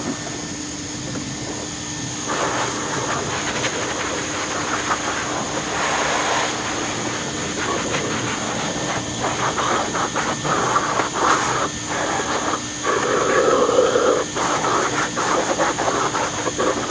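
Bagless upright vacuum cleaner running with a steady motor hum and airflow hiss, with irregular rattling and crackling in the second half.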